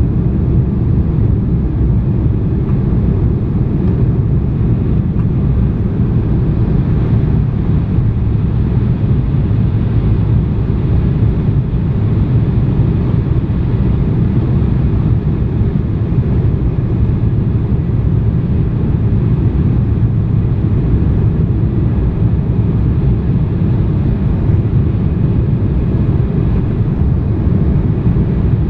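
Steady low roar of an airliner's cabin on approach: engine and airflow noise heard from inside the passenger cabin, even throughout with no distinct events.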